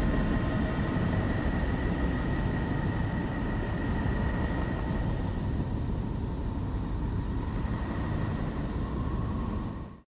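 The 'sound of Neptune': spacecraft radio data from the planet turned into audio. It is a steady low rushing rumble with a faint thin tone held above it, and it cuts off suddenly at the end.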